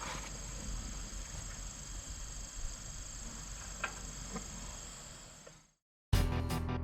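Crickets chirping steadily in the background, with a few faint clicks, fading out about five and a half seconds in. After a moment of silence, guitar music starts near the end.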